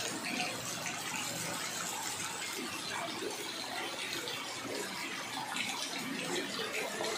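Rain falling steadily onto a flooded street, a continuous hiss and splash of drops on the running floodwater.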